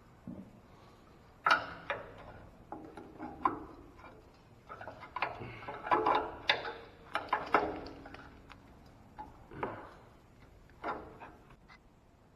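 Irregular clicks, knocks and clinks of small metal parts and hand tools being handled during hand repair work on a skid loader, a few of the knocks ringing briefly.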